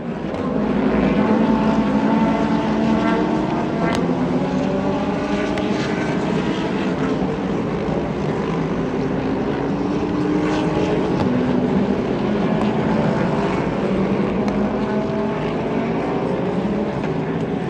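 Several race car engines at racing speed together, IMSA sports prototypes and GT cars passing in a group, a steady mass of overlapping engine notes that swells about half a second in.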